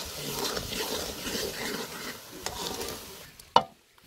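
A wooden spatula stirring and scraping a thick, sizzling mixture of roasted gram flour, ghee and sugar in an aluminium pot, the mixture cooked down to a stiff paste. The stirring fades near the end and one sharp knock follows.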